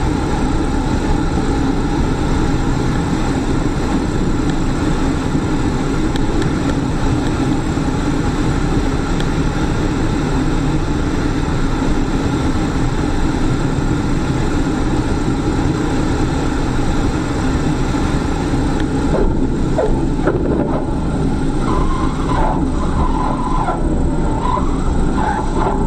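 Steady, loud vehicle noise, an even rumble and hiss without speech, with faint wavering tones joining in during the last several seconds.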